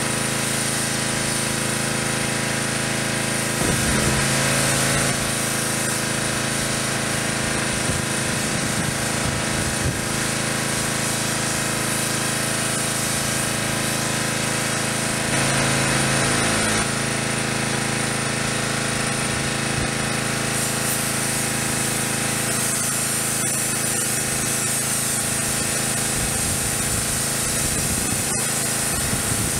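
Pressure washer's small engine running steadily while water sprays from the wand onto a pickup truck. Twice the engine note briefly grows louder and deeper for a second or so, and the spray hiss grows stronger in the second half.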